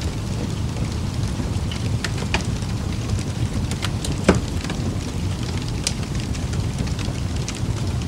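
Steady ambient noise, heaviest in the low end, with scattered soft clicks and crackles and one sharper crackle about four seconds in.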